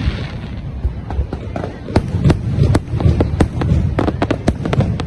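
Fireworks going off: a rapid series of sharp bangs and crackles, several a second, over a continuous low rumble, with voices of people watching.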